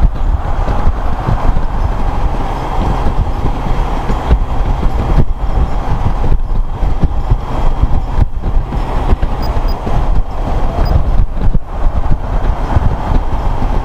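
Honda Gold Wing motorcycle riding at highway speed, heard from the rider's seat: steady rush of wind and road noise over the engine.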